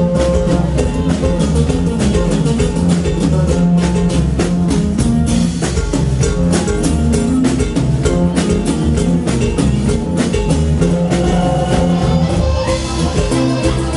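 A live norteño band playing a huapango, with accordion, acoustic guitar, electric bass and drums.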